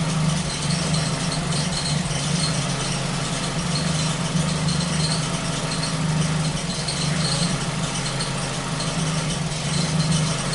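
Ford Focus engine running steadily, an even hum with no change in revs.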